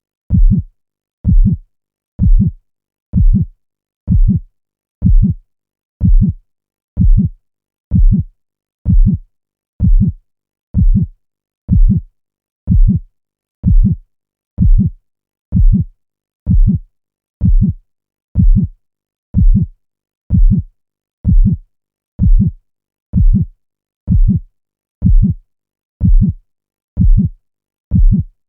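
Looped dramatic heartbeat sound effect: a deep lub-dub double thump repeating steadily about once a second, with silence between beats.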